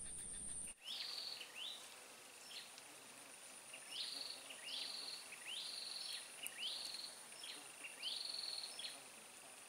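Faint outdoor ambience: a bird gives short high calls again and again, each rising then holding briefly, over a steady high-pitched insect whine. A low background rumble cuts off abruptly under a second in.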